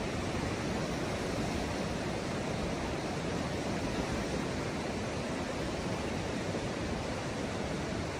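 Steady rush of fast-flowing floodwater, an even roar that does not change.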